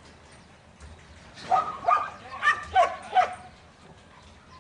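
Young Border collie barking, a quick run of about five or six sharp barks in under two seconds, starting about a second and a half in.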